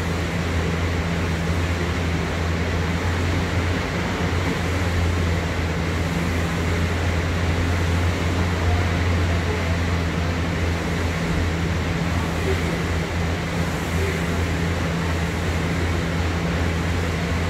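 Concept2 SkiErg's air-resistance fan flywheel spinning under continuous pulling, a steady whir and rush of air with a low hum.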